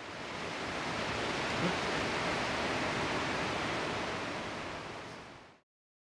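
A steady rushing hiss that swells up over the first second and fades away shortly before the end.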